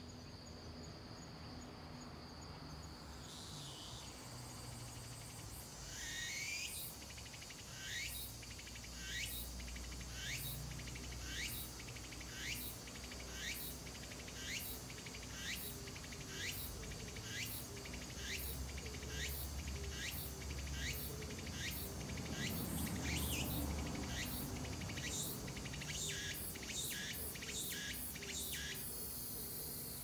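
Insects calling in woodland. A steady high trill sounds at first; then from about three seconds in one caller repeats rising, buzzy sweeps about one and a half times a second, which quicken near the end before it stops. A low rumble swells briefly about two-thirds of the way through.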